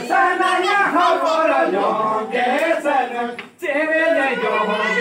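Group of women and men singing a Santali traditional song together without clear drumming, breaking off briefly about three and a half seconds in before going on.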